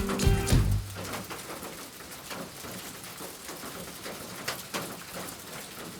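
Background music cuts off under a second in, leaving steady rain falling, with many small drop impacts.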